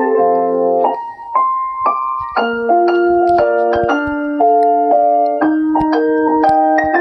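Mobile phone ringtone: a synthesized keyboard or electric-piano melody playing chords that change about every half second, with a short break about a second in.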